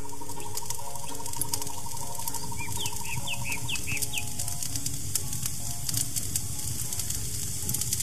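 Recorded nature ambience: a dense, steady high hiss full of fine crackling clicks, with about five short falling bird chirps in a quick run a few seconds in. Soft ambient music with held notes runs underneath.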